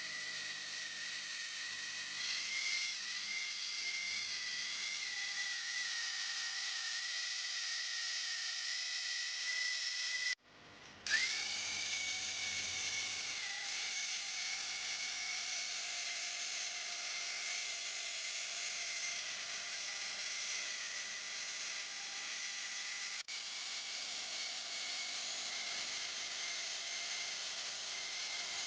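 A small high-speed electric power tool running with a steady high whine. It cuts out briefly about ten seconds in, then comes back and settles to speed.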